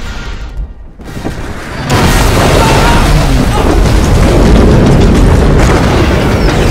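Film sound effects of a giant alien tripod crashing to the ground: after a quieter moment, a sudden heavy crash about two seconds in, then loud, continuous crashing and rumbling of wreckage.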